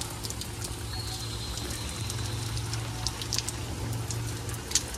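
Heavy rain falling steadily, with many sharp drops ticking close by and a low steady hum underneath.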